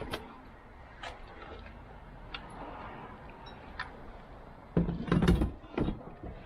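A car bucket seat being handled and moved: scattered light clicks and knocks, then a burst of louder thumps and knocks about five seconds in.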